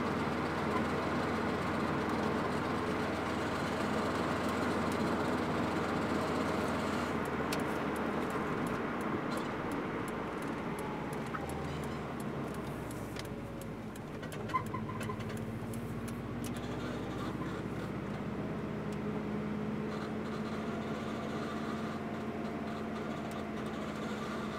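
Subaru WRX driving with a noise from the front left wheel area whose pitch follows wheel speed, not engine speed, and that braking does not change. The pitch drops as the car slows about halfway through, then rises and holds as it picks up speed again, with scattered light clicks in the middle.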